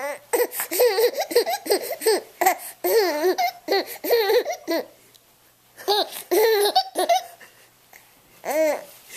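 A baby laughing while being tickled, in quick runs of short, high-pitched laughs. A long run is followed by a pause, then a shorter run and one last brief laugh near the end.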